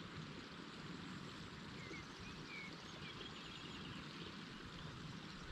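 Faint, steady outdoor lakeside ambience, with a few faint high bird chirps about two to three seconds in.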